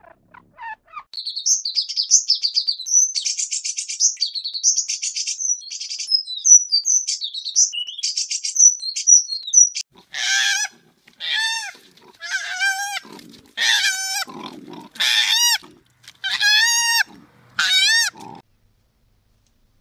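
Animal calls: about nine seconds of rapid high-pitched chirping and twittering, then six short squealing calls with a wavering pitch, roughly one every second and a half.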